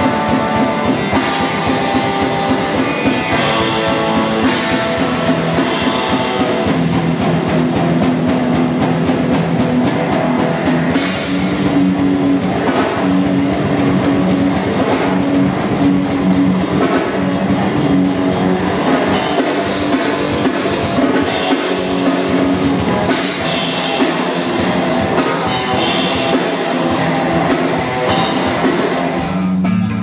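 Rock music with a drum kit keeping a steady beat under guitar.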